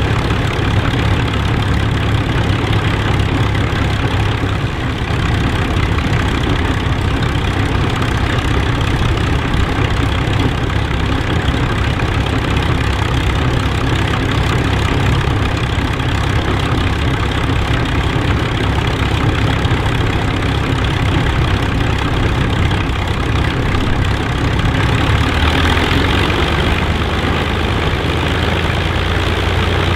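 An Avro Lancaster bomber's Rolls-Royce Merlin V12 engines running at idle on the ground, with a steady deep drone. About 26 seconds in, the note shifts and grows a little harsher.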